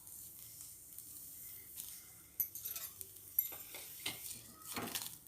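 Indian borage leaves sizzling faintly as they are stirred and sautéed in a hot kadai, with two sharp clicks a little over two and three seconds in and louder scraping strokes near the end.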